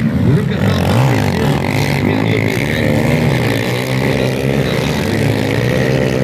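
Several 250 cc motocross dirt bikes revving and accelerating through a sandy corner, their engine notes rising and falling over one another.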